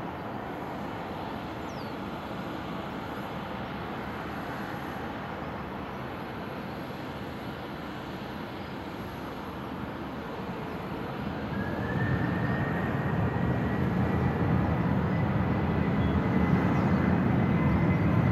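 Boeing 737-800's CFM56-7B jet engines running steadily as the airliner rolls on the runway, then spooling up about 11 seconds in: a rising fan whine and a much louder rumble as takeoff thrust is applied for the touch-and-go.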